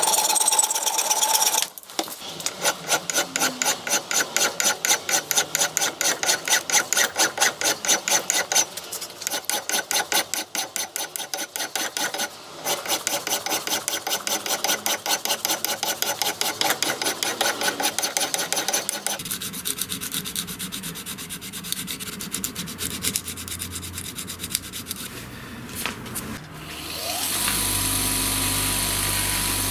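A hand file rasping across a brass hammer head in quick, even strokes. Near the end a bench grinder with a buffing wheel starts up and runs with a steady hum.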